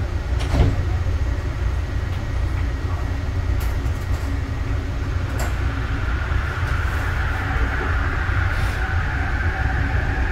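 Interior running noise of a Yongin EverLine light rail car (Bombardier ART 200) pulling out of a station. A steady low rumble carries a drive whine that climbs in pitch from about halfway through as the train gathers speed, with a few sharp clicks.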